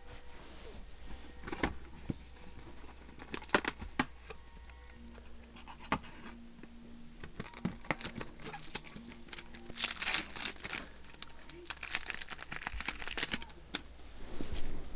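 Cardboard booster box and foil Yu-Gi-Oh! booster-pack wrappers being handled: irregular rustling and crinkling, with denser bursts of crackling in the second half as a pack is torn open near the end.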